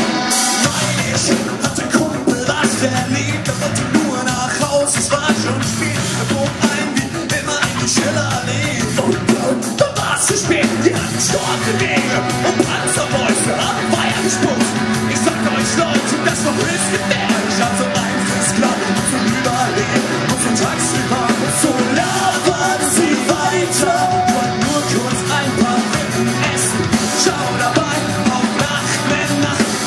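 Punk rock band playing live: electric guitars, bass guitar and drum kit with frequent cymbal hits, and a singer's vocals at times.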